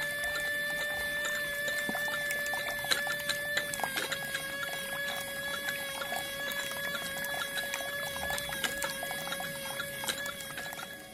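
Small DC motor whining with a steady high tone as it drives a miniature well pump, while water pours down a chute and splashes into a small tank. The motor's pitch drops slightly about four seconds in.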